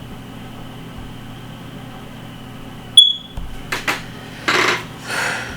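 Small parts being handled while a drone propeller is removed: a sharp click about three seconds in, ringing briefly like small metal, followed by short rustling handling noises over a steady low electrical hum.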